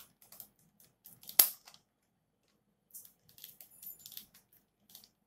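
Plastic clicks and rattles as a yellow plastic attachment is fitted and turned on a green plastic spinning top, with one loud sharp click about a second and a half in and a run of smaller clicks near the end.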